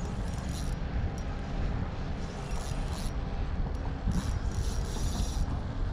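Spinning fishing reel being cranked in three short spells. A steady low rumble of wind on the microphone runs under it.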